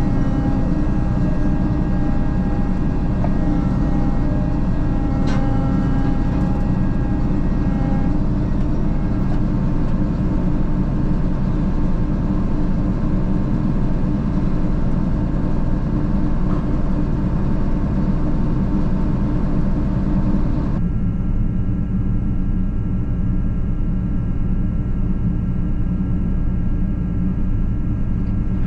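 Heavy diesel farm machinery engine running steadily at a constant speed. About two-thirds of the way through the sound changes abruptly and becomes duller, the higher tones dropping away.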